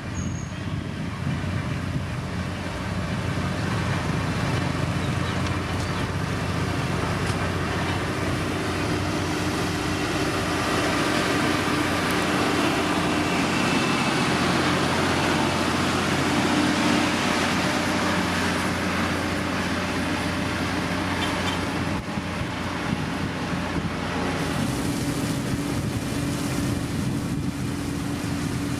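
Diesel engine of a heavy road-building machine, such as a motor grader or road roller, running steadily while it works. The sound is continuous and a little louder around the middle.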